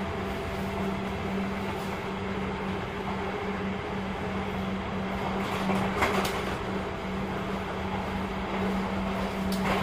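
Sotetsu 8000-series electric train (set 8701F): a steady low hum that holds one pitch, over an even rushing noise, with a brief louder swell about six seconds in.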